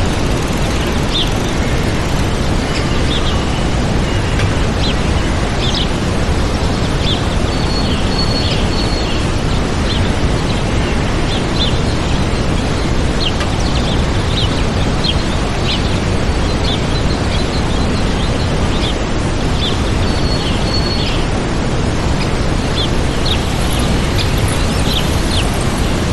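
Waterfall rushing steadily, with small birds chirping over it in short high calls and a few brief whistles throughout.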